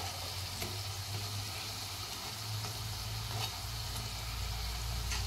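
Black-lentil batuk fritters sizzling steadily in hot oil on a low gas flame, with a few faint clicks.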